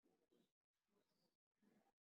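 Near silence: only a very faint background murmur, cut by brief dropouts to dead silence.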